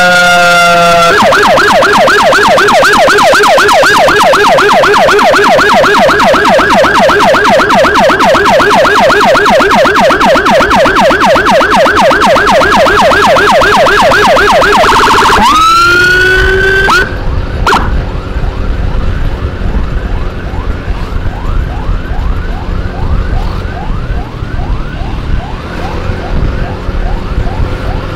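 Motorcycle-mounted CJB 200E electronic siren on fast yelp, very loud, with several rapid rising-and-falling sweeps a second. About fifteen seconds in it switches to a short rising wail, then cuts off. After that a fainter siren keeps yelping over engine and road rumble.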